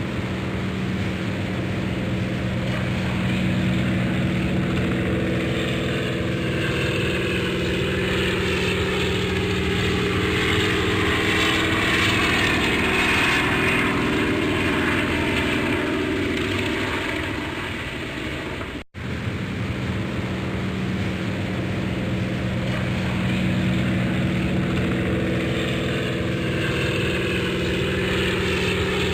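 Airplane engine running and passing by. The drone swells and its pitch falls as it goes past, then breaks off abruptly about two-thirds of the way through and builds again.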